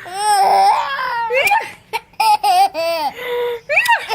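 A 7-month-old baby laughing: a long, high laugh over the first second and a half, then a string of short giggles in quick succession.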